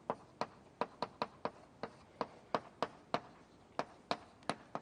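Writing on a board during a lecture: a quick, irregular run of sharp taps and clicks, about four a second, as symbols and diagrams are put down.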